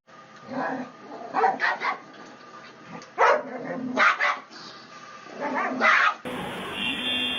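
A dog barking: a series of short barks, several in a quick cluster, spaced roughly a second apart.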